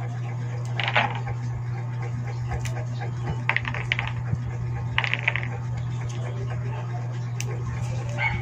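Balatong bean pods being split open by hand and the seeds clicking onto a plastic tray: a few short crackling clusters, about a second in and again around three to five seconds in, over a steady low hum.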